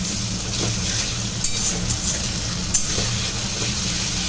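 Ginger, garlic and chilli paste sizzling in hot oil with fried onions in a pan, stirred with a spatula that scrapes the pan now and then, during the frying of a biryani masala.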